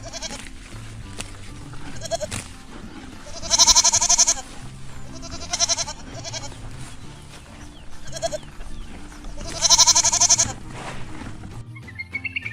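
An animal calling again and again, about five pitched calls of varying length, the longest around a second, over steady background music.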